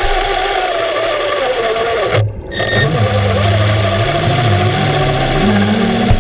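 Electric thruster motors of a remote-controlled underwater camera running, their whine wavering and gliding up and down in pitch as they change speed, with a brief dip a little over two seconds in. A steady high thin tone runs under it.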